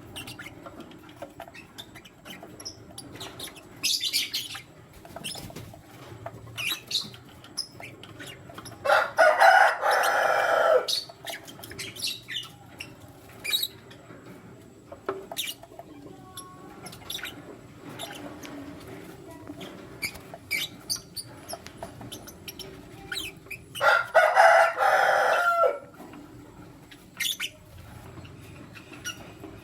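A pair of lovebirds chirping: many short, sharp chirps scattered throughout, with two louder drawn-out calls of about two seconds each, near nine seconds in and again near twenty-four seconds.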